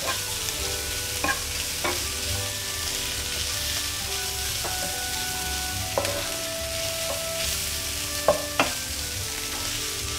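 Shredded chicken and fried onions sizzling in oil in a non-stick frying pan while a spatula stirs and tosses them, with a few sharp knocks of the spatula against the pan.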